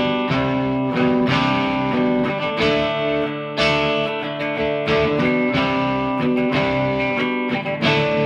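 Gibson Custom SG electric guitar played through an amplifier before its setup: picked chords and notes ringing out, changing every half second to a second.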